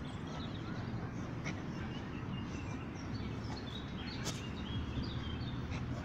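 Small birds chirping in short high notes, busiest in the middle, over a steady low outdoor rumble.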